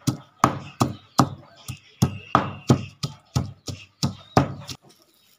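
Wooden pestle pounding in a wooden mortar, crushing ingredients: about fourteen knocks, roughly three a second, that stop suddenly near the end.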